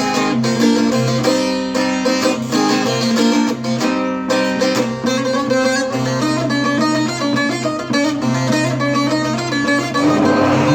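Juniper-wood bağlama (Turkish long-necked saz) being played: a quick melody of rapidly plucked notes.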